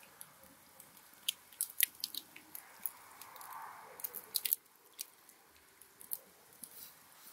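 Close-up eating sounds: a man biting into and chewing tender steamed meat on the bone. Sharp wet smacks and clicks come between about one and four and a half seconds in, with a soft tearing sound near the middle.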